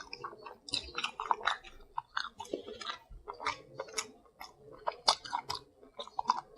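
A person chewing mouthfuls of soft, butter-dipped lobster tail meat, with an irregular run of short wet mouth clicks and smacks.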